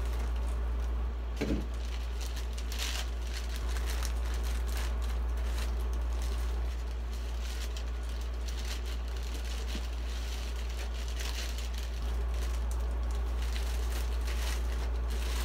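Plastic bag wrapping crinkling and rustling as foam model-plane parts are handled, with a few light knocks, over a steady low hum.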